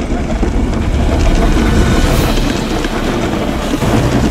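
Avalanche rumbling: a loud, continuous low rumble of snow sliding down a mountainside, growing slightly louder after about a second.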